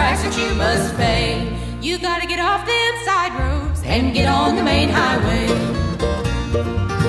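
Bluegrass band playing a song, with women singing over plucked strings and a walking bass.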